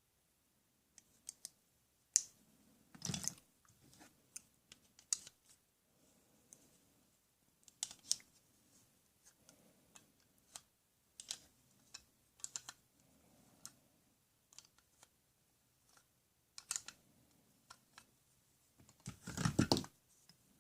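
Small objects being handled: irregular clicks, taps and scratching, with a louder scraping rustle near the end.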